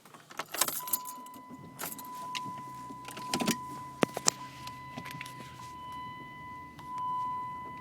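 Keys clicking in the ignition of a 2006 Dodge Charger as it is started, then the engine running with a low steady hum. A steady high-pitched tone sounds alongside it from about a second in.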